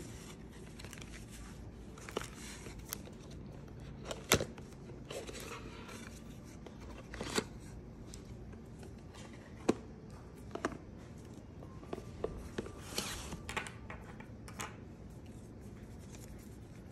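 Unboxing handling sounds: paper leaflets rustling and a cardboard box and small plastic parts being handled, with scattered sharp clicks and taps, the loudest about four seconds in.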